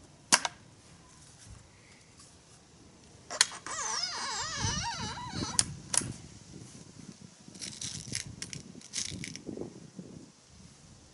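Break-barrel air rifle being cocked. A sharp click as the barrel is broken open, then about two seconds of creaking, warbling twang as the barrel is levered down and the piston spring compresses, ending in two sharp clicks as the mechanism latches. A quick run of small clicks and rattles follows while the open rifle is handled.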